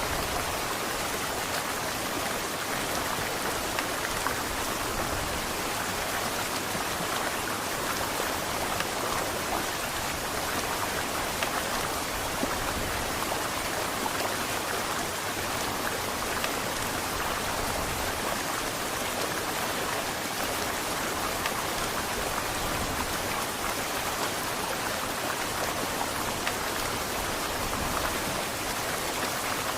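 Heavy rain pouring down steadily in an even hiss.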